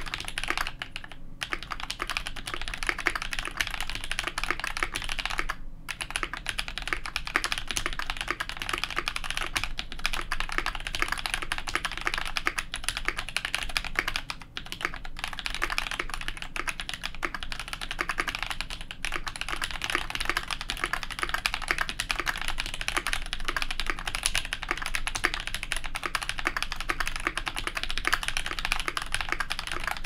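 Fast, continuous typing on a KBD75v2 mechanical keyboard fitted with lubed NovelKeys Cream linear switches and GMK doubleshot ABS keycaps: a dense stream of keystroke clacks, broken by a few brief pauses.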